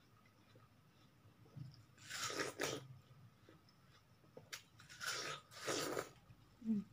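A person biting into and chewing a juicy watermelon slice: two pairs of short, loud bites about two and five seconds in, with a few faint clicks between.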